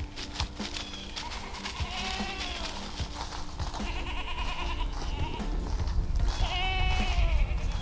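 Kiko goats bleating: three drawn-out, wavering bleats, the last the loudest.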